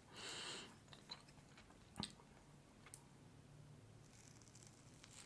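Faint table sounds of eating with a fork: a soft breathy exhale at the start and a sharp click of a metal fork on the plate about two seconds in. Near the end comes a faint high hiss as the fork presses into the glazed mousse cake.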